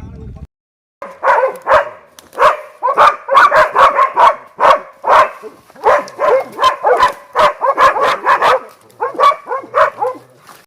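A dog barking rapidly and repeatedly, two to three barks a second, starting about a second in and stopping shortly before the end.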